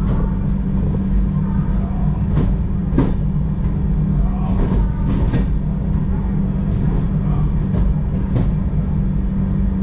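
Inside a Tejas Express passenger coach rolling slowly along a station platform: a steady low rumbling hum, with several sharp clacks as the wheels pass over rail joints.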